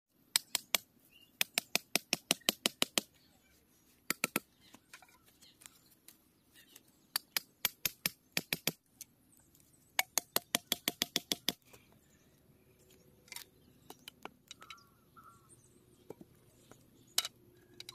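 A knife blade hacking at bamboo stakes: quick runs of sharp knocks, about seven a second, in several bursts of a second or so, then only a few single knocks.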